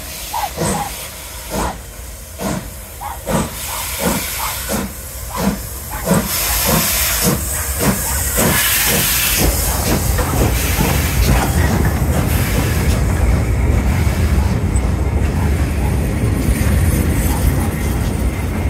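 FS Class 640 steam locomotive pulling away, its exhaust chuffing about once a second at first and then faster as it gathers speed, with steam hissing. About halfway through the chuffs blur into a steady rumble as the locomotive and then the carriages roll past close by on the rails.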